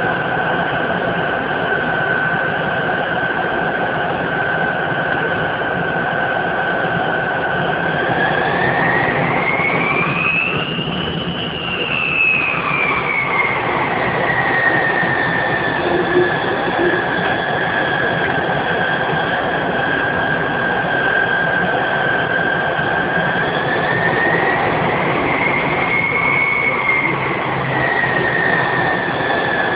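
Tupolev Tu-134A's Soloviev D-30 turbofan engines heard from inside the cabin while taxiing: a steady whine over a broad rush. The whine rises in pitch about ten seconds in and settles back as thrust is added and then reduced, with a smaller rise and fall near the end.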